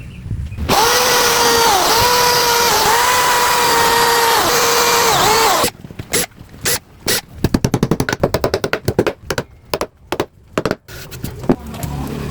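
A power tool motor running with a steady whine, its pitch dipping briefly a few times as it takes load, then cutting off suddenly about six seconds in. A run of quick, irregular clicks or knocks follows.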